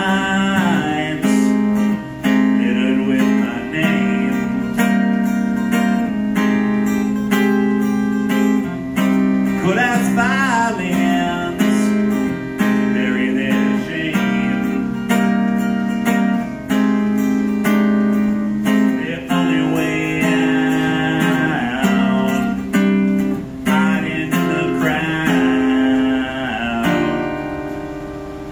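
Acoustic guitar strummed in steady chords, with a man singing over it in a few stretches.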